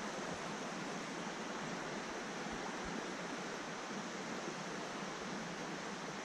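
Steady rush of a shallow trout stream's flowing water, even and unbroken.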